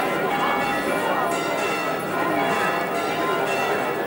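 Church bells ringing steadily and overlapping, with crowd chatter underneath.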